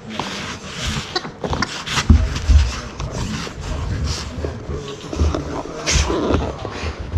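A golden retriever and a miniature dachshund puppy playing and tussling on a carpet: irregular scuffling and short clicks, with dull thumps about two seconds in and again near six seconds.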